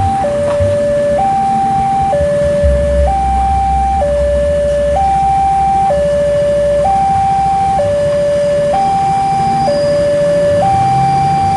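Railway level-crossing warning alarm sounding its steady two-tone electronic signal: a high and a low tone alternate, each held about a second. It warns that a train is approaching and the crossing is closed.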